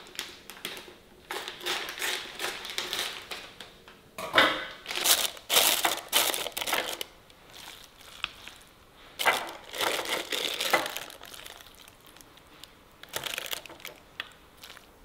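Crinkling and rustling in irregular bursts as a pack of tahu kopong, hollow fried tofu puffs, is opened and handled.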